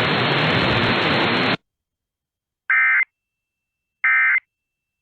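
Steady hiss of static that cuts off suddenly about a second and a half in, followed by two short, buzzy digital data bursts about 1.3 seconds apart: the EAS SAME end-of-message (EOM) code bursts that close the alert.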